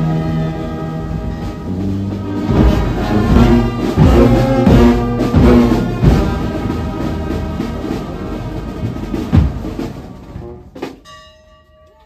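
Brass band playing, with sustained brass chords and drum strikes. The music ends near the end.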